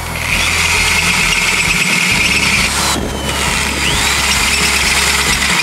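Countersink cutter chamfering a bolt hole in a metal valve flange, the cut giving a loud, steady high squeal. It comes in two spells, with a brief break about three seconds in.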